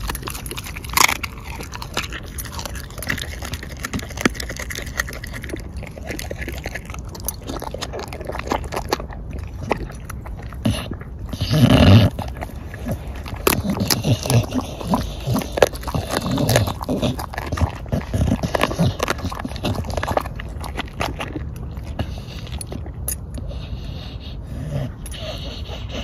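A bulldog chewing and crunching on a black chicken carcass, a run of short wet bites and crunches that goes on throughout, with a louder, deeper noise about twelve seconds in.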